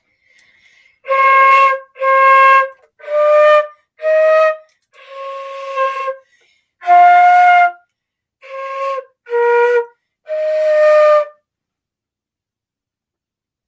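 Solo flute playing a slow, simple tune in about nine separate held notes with short breaths between them, each note breathy. The playing stops a couple of seconds before the end.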